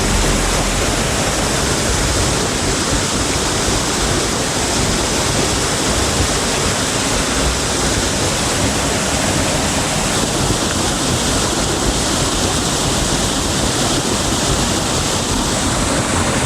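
Waterfall: a loud, steady rush of falling water that stays even throughout.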